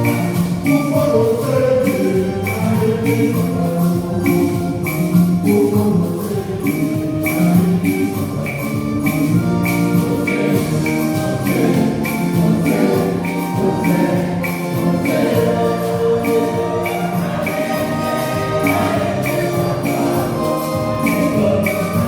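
Church gospel music: voices singing over a steady percussion beat with jingling hits about twice a second.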